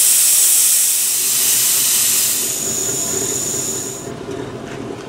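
Air rushing out of a truck tire's valve stem with the valve core pulled, a loud steady hiss that fades about four seconds in as the tire goes flat. The engine idles underneath, warming up.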